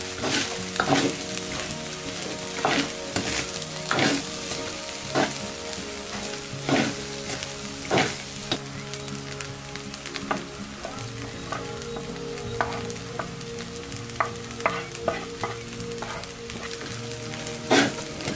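Chao fan (fried rice) sizzling in a wok as a metal spatula stirs and tosses it, with irregular scrapes and clinks of the spatula against the pan about once a second over the steady sizzle.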